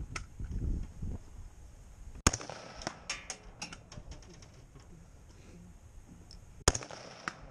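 Two gunshots about four and a half seconds apart, each a sharp crack followed by about a second of echo and smaller trailing cracks.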